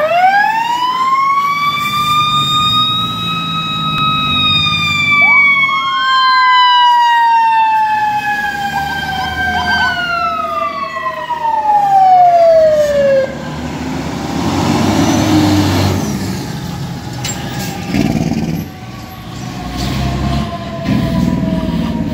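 Fire apparatus sirens on a run. One siren winds up sharply and then slowly winds down, and a second siren rises about five seconds in; both fall away by about thirteen seconds. Truck engine noise passes, and fainter steady siren tones carry on near the end.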